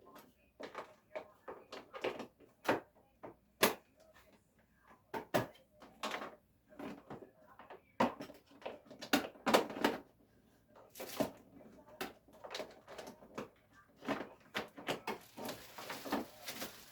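Handling noises: irregular clicks, knocks and short rustles of objects being moved and opened.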